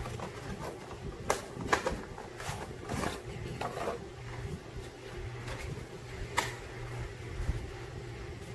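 Handling noise: scattered clicks, knocks and rustles of the plastic packaging and polymer grip module being handled, over a steady low hum.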